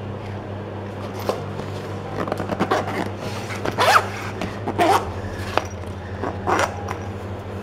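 Zipper of a waterproof phone case being drawn shut in a series of short pulls, over a steady low hum.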